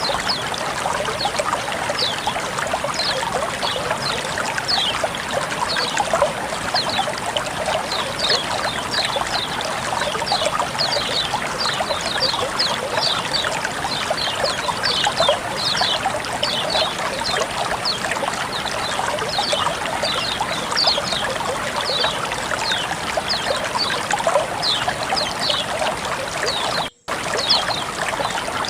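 Flowing water trickling and splashing steadily, with many quick high falling chirp-like notes over it. The sound drops out for a moment near the end.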